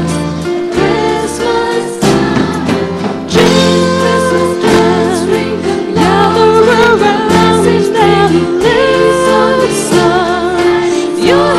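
A school choir singing a song, with a wavering sung melody over steady held chords and a bass line of instrumental accompaniment.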